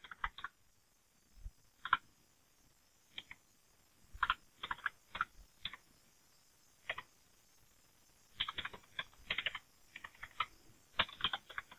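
Computer keyboard keystrokes: short runs of typing separated by pauses, as shell commands are typed in.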